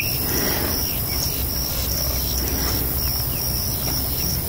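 Insects chirping outdoors, a high-pitched pulse repeating about twice a second, over a low steady rumble.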